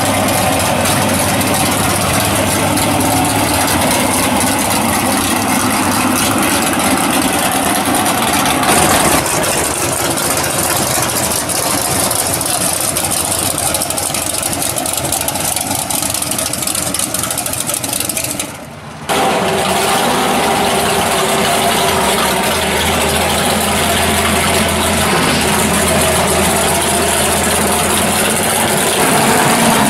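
Drag-race car engines idling loudly, one car after another, with a brief drop in the sound about nineteen seconds in.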